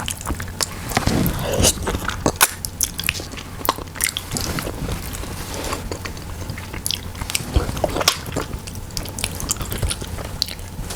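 Close-miked mouth sounds of someone eating soft braised pork leg (pata tim) with rice: chewing with many small wet clicks and smacks.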